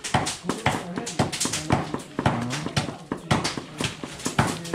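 Bare hands kneading and slapping a wet minced-meat filling in a large stainless steel bowl: a quick run of squelching slaps, about four or five a second.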